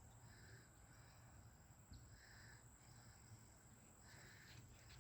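Near silence, with a few faint bird calls, each about half a second long and coming every second or two, over a steady thin high whine.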